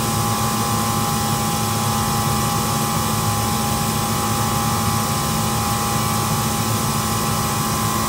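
Reach-in refrigeration condensing unit running: a steady hum with a few steady tones over an even whoosh. The compressor runs but pulls the suction pressure down only slowly, which the technician takes for a bad compressor that fails to pump.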